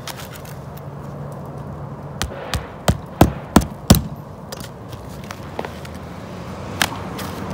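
Hand hammer driving roofing nails through asphalt ridge cap shingles: a quick run of six sharp strikes about two seconds in, and one more knock near the end.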